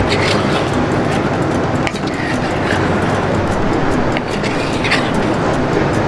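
Pork belly sizzling in a clay pot while a wooden spatula stirs it, with a few scrapes against the pot, over a steady low rumble.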